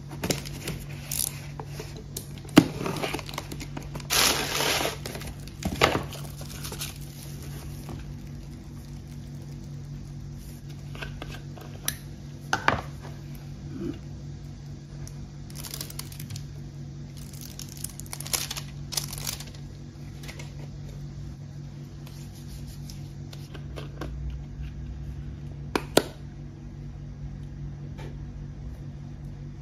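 Unpacking a small cardboard parcel: tearing and crinkling of packaging in the first several seconds, then scattered clicks and short rustles as plastic cream jars are handled and their screw lids opened. A steady low hum runs underneath.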